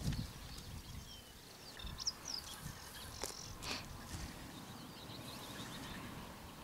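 Small birds chirping faintly, with a few low knocks and sharp clicks as bait containers are handled and set down on a rubber tyre; the knocks near the start and about two seconds in are the loudest.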